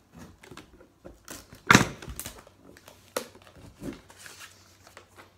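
Shipping label and packing tape being cut with scissors and peeled and torn off a cardboard box: irregular scrapes, crinkles and rips, the loudest a sharp rip a little under two seconds in.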